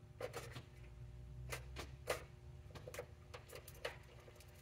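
Irregular light clicks and rattles of small parts being handled while someone rummages for a resistor, over a low steady hum. The sharpest click comes about two seconds in.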